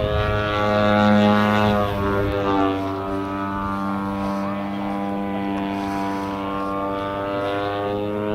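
Engine and propeller of a 35% scale Aeroworks Extra 260 radio-control aerobatic plane in flight, a steady droning note. The pitch slides a little lower a second or two in, then holds steady.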